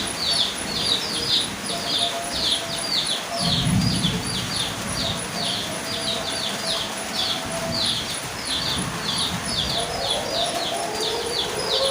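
Steady rain hiss under a bird chirping rapidly and evenly, about three or four short high chirps a second. There is a brief low rumble about three and a half seconds in, and a siren begins to rise near the end.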